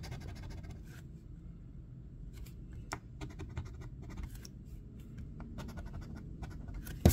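A metal coin scraping the coating off a scratch-off lottery ticket in short, irregular strokes, with a sharp click near the end.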